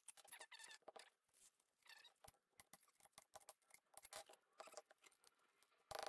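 Near silence with faint scattered scuffs and ticks: a shop rag wiping out the inside of a trailer hub.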